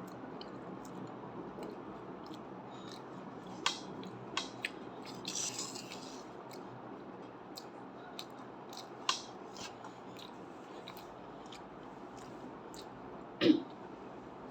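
Eating sounds from chewing candy and gum: scattered small clicks, a brief crinkle about five seconds in, and a short louder low sound near the end, over quiet room noise.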